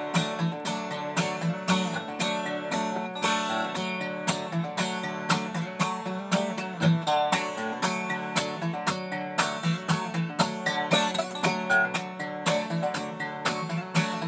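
Solo acoustic guitar strummed in a steady rhythm with no singing: an instrumental break in a song.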